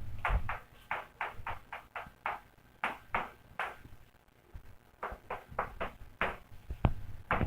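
Pen strokes of handwriting: a run of short, quick ticks, about four a second, with a pause of about a second near the middle.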